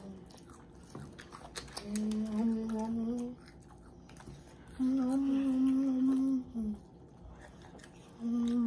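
A child humming a closed-mouth "mmm" while eating, three long steady hums of about a second and a half each, the last starting near the end.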